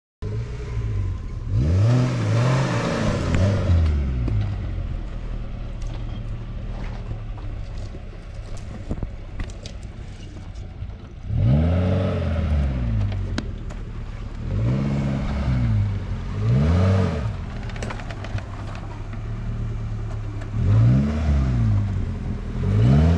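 Off-road 4x4's engine revving in repeated surges, pitch climbing and falling back about six times over a steady lower running note.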